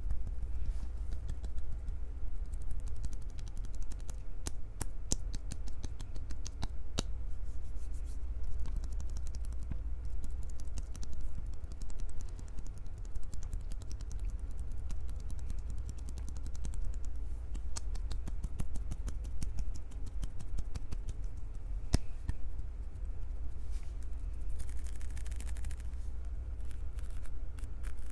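Hands gripping, squeezing and rubbing a Tascam recorder's microphones at close range: a dense run of small clicks and crackles over a constant low handling rumble.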